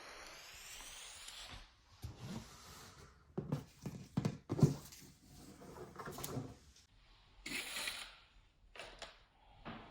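Packaging being handled and opened: irregular soft knocks, scrapes and paper rustles, with a short hissing rustle a little before the end.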